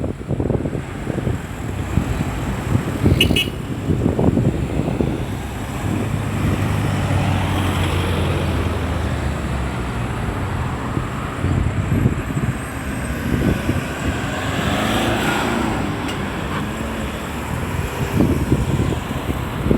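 Road traffic passing at a busy roundabout: cars going by, with a heavier vehicle's low engine hum about six seconds in and another vehicle swelling past near the middle.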